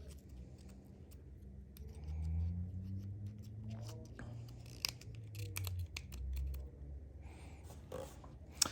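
ToughBuilt Reload utility knife being handled while replacement blades are loaded into it: scattered small clicks and scrapes of the plastic and metal mechanism, with a sharper click near the end.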